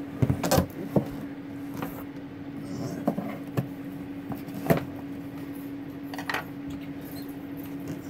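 A large cardboard box being slit open with a knife and its flaps pulled back: scattered sharp knocks, scrapes and rustles of cardboard, over a steady low hum.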